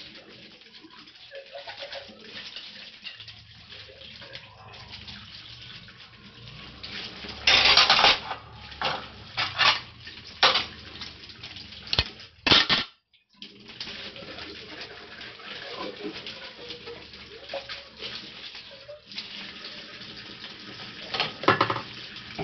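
Kitchen tap running steadily into a stainless-steel sink while dishes and plastic containers are washed and rinsed, with several loud splashes and clatters of water and crockery. The sound breaks off briefly about thirteen seconds in.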